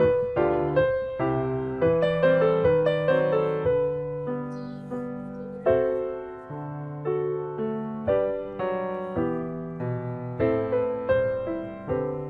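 Background piano music: a gentle melody of struck notes, each fading away, over sustained lower notes.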